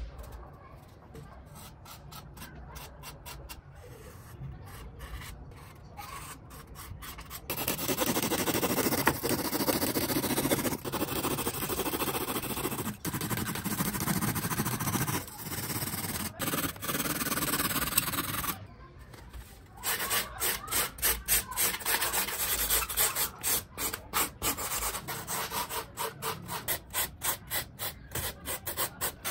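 Hand tools working thermocol (expanded polystyrene) foam. First a blade cuts through the foam with a dense scraping. Then, from about two-thirds of the way in, sandpaper rubs back and forth over the foam in quick, rhythmic strokes.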